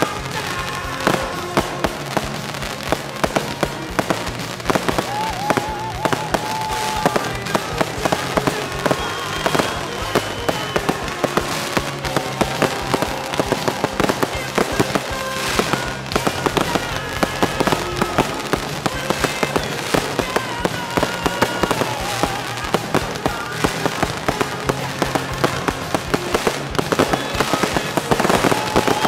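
Fireworks bursting in rapid succession: a dense run of sharp bangs and crackles from shells and multi-shot cakes, with background music underneath.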